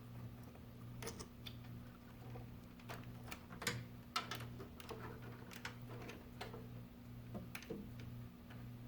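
Faint, irregular clicks and taps of hands handling and routing a fan cable among the wiring inside a PC case, over a steady low hum.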